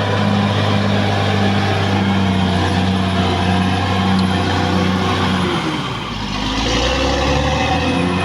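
Caterpillar D6R XL bulldozer's diesel engine running steadily under work, with an evenly pulsing tone in its note. About six seconds in, the engine note drops lower and briefly quieter for around two seconds, then picks back up.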